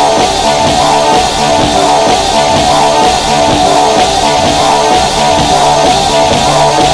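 Rock music with guitar and drums, loud and steady.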